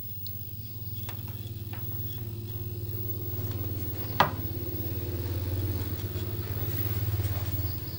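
A steady low hum with a few overtones, growing slightly louder through the middle and easing near the end, with one sharp click about four seconds in.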